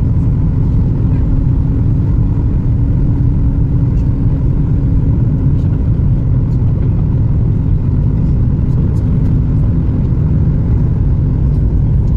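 Steady cabin noise inside a Boeing 737 MAX 8 in flight: an even low rumble with a faint steady hum.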